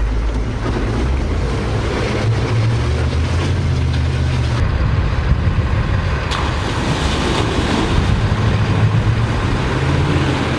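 Humvee's diesel V8 engine running under heavy throttle as the truck drives into deep water, with water splashing and churning around it.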